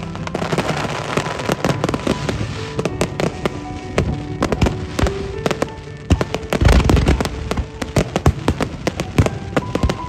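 Fireworks going off in rapid, irregular bangs and crackles over music, with a loud cluster of bangs about two-thirds of the way through.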